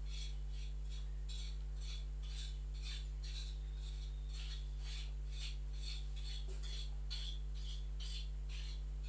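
Steady low electrical hum, with faint short high-pitched chirps repeating irregularly about three or four times a second.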